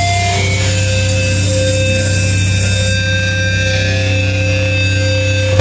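Live noise-rock band playing loud, distorted amplified guitars in a sustained drone with held feedback tones and no clear beat. A hiss rises high above it from about one to three seconds in.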